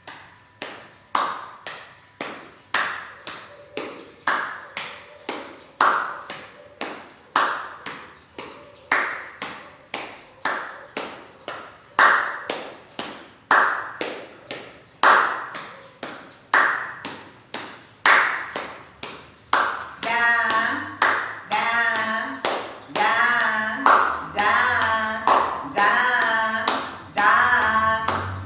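A steady rhythm of hand claps and taps, a few strikes a second, keeping an even beat. About two-thirds of the way through, a voice starts singing along over the beat.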